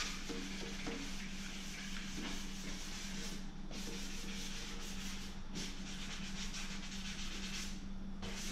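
Wooden chair spindles and back rail hand-sanded with a sanding sponge, scuffing the shine off the old finish before painting. The rubbing strokes pause briefly every couple of seconds.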